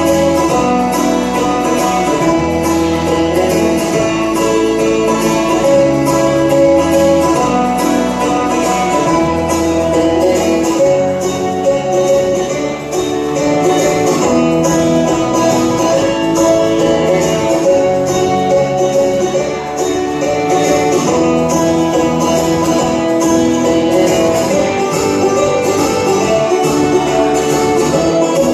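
Recorded music with guitar and fiddle-like string parts and a steady beat.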